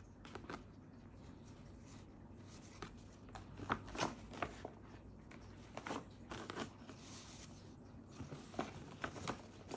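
Stiff paper gift bag and its ribbon crinkling and rustling as hands untie and open it, in short, irregular crinkles, a few of them sharp, the loudest clustered around the middle.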